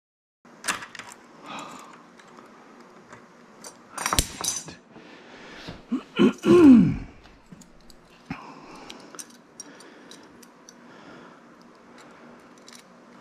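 Clinks and clattering from a metal door hinge and hand tools being handled, with a louder rattle about four seconds in. Between six and seven seconds comes the loudest sound, a man's short vocal outburst that falls in pitch.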